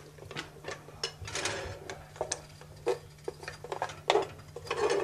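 Metal spoon stirring and scraping chocolate and milk in a small enamel saucepan set in a double boiler, with irregular clinks and scrapes against the pan, over a faint steady hum.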